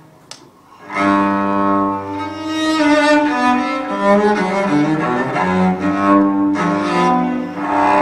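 Recorded cello music played back through Natural Sound 1 field coil loudspeakers, each with a 15-inch Maxonic field coil driver and a compression tweeter. Long held bowed notes come in about a second in, after a short lull.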